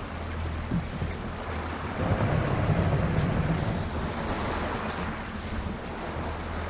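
Rigid inflatable boat's engine running slowly with water washing around the hull, the engine and wash louder from about two to four seconds in.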